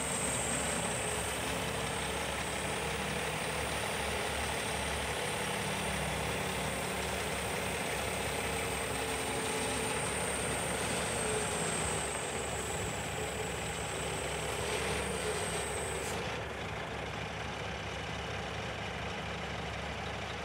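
Scania R480 truck's straight-six diesel idling steadily while its JOAB hooklift arm is lowered on the truck's hydraulics. A thin high whine over the engine cuts off about three-quarters of the way through, and the sound eases slightly.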